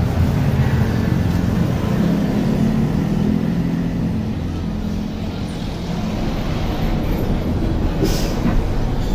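A motor vehicle engine running steadily, a continuous low hum. A brief hiss comes near the end.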